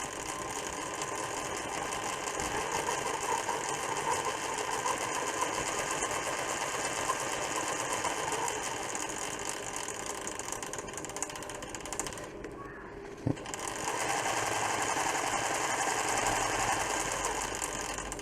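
Pfaff Creative 1471 sewing machine running steadily under foot-pedal control. A little past the halfway mark it stops for about a second with a single click, then runs again. Its running shows the cleaned foot pedal, with its carbon resistor, now working.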